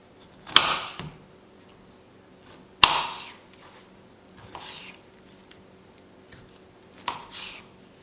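Coffee-making gear being handled: four sharp knocks, each followed by a brief rustling or scraping noise.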